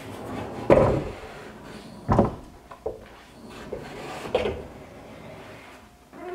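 Rough-sawn wooden barn door being slid back and forth by hand on its sliding rail hardware: a rolling rumble with three heavier wooden knocks, the loudest about a second in, and a few lighter bumps between.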